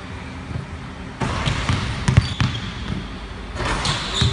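A basketball bouncing on a hardwood gym floor in a string of irregular dribbles, the loudest just after two seconds in, with a couple of brief high sneaker squeaks.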